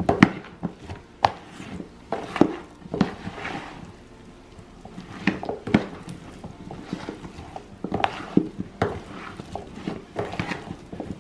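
A metal spoon stirring broccoli and cauliflower florets through a mayonnaise and sour-cream dressing in a large plastic tub, making irregular clicks and scrapes against the tub's side and bottom.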